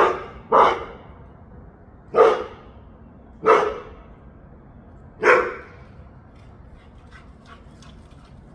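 A dog barking five times, the first two quickly one after the other and the rest spaced more slowly, then stopping.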